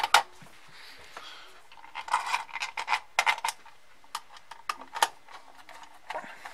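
Plastic housing of a Bosch MTS 6531 diagnostic interface being handled and reassembled: a loud pair of sharp plastic clicks at the start as the case is pressed together, a cluster of clicks and rattles about two seconds in, and single clicks as a small screwdriver works the case screws.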